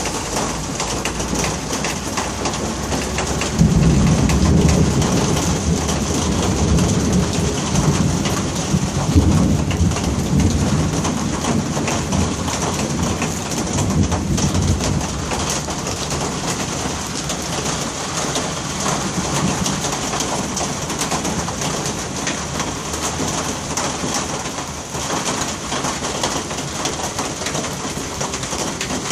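Thunderstorm: steady heavy rain hissing on the street and cars, with rolling thunder that breaks in suddenly a few seconds in and rumbles on in two more swells.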